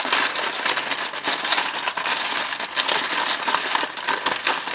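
Plastic felt-tip markers clattering against each other and a plastic tub as hands rummage through them: a dense, quick run of small clicks and knocks.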